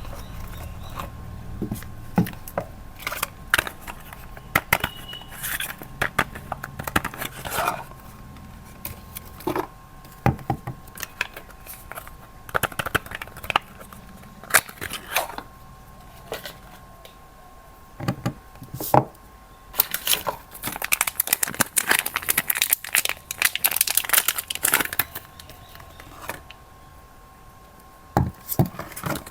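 Soap packaging being torn and crumpled open by hand: irregular crackles and rustles of wrapping, with a dense stretch of crinkling about two-thirds of the way through.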